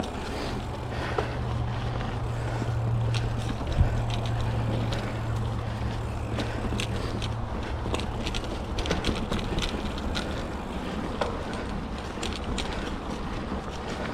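A 2007 Cannondale Rush mountain bike being ridden on dirt singletrack: steady tyre and wind noise on the microphone. A low drone runs through roughly the first half, then frequent sharp clicks and rattles follow from the bike over rough ground.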